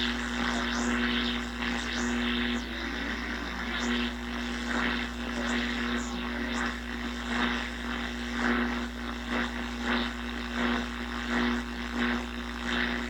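Yaesu FRG-7 communications receiver playing an AM broadcast station through its speaker: broken-up program audio over a steady low hum and drone. The hum is AC mains pickup on the simple wire antenna, not a capacitor fault.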